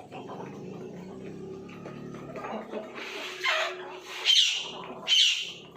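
Chickens squawking: three loud, shrill calls in the second half.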